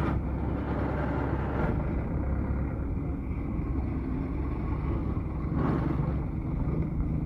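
Truck engine running close by, a steady low rumble; near the end a deeper engine hum grows stronger.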